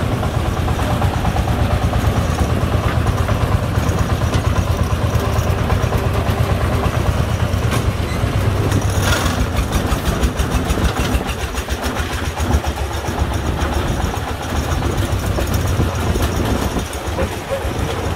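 Công nông farm truck's single-cylinder diesel engine running with a steady, rapid beat.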